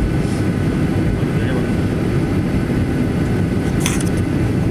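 Steady low rumble of cabin noise in a Boeing 737-800 taxiing after landing, its CFM56-7B engines running at idle, with one brief sharp click nearly four seconds in.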